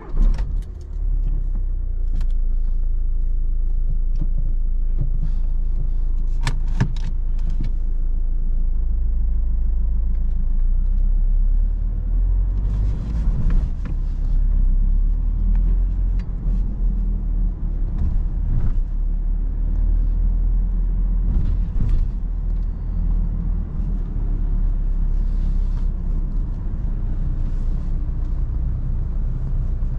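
Škoda Octavia II's four-cylinder 1.9 TDI turbodiesel engine starting up, then idling with a steady low rumble. A few sharp clicks come about six to seven seconds in.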